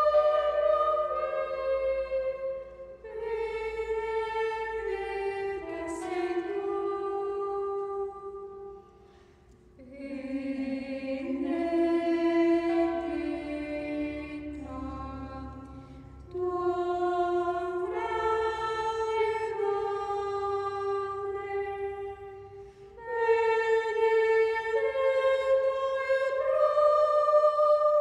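Women's voices singing a slow hymn to the Virgin Mary in long, held phrases, with short pauses between phrases; the longest pause comes about nine seconds in.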